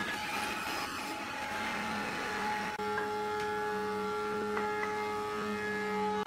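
Woodworking shop machinery's electric motor running with a steady hum, a second tone joining about three seconds in.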